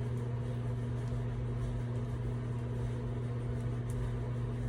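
Steady low electrical or fan hum with a constant low drone, and a couple of faint light ticks.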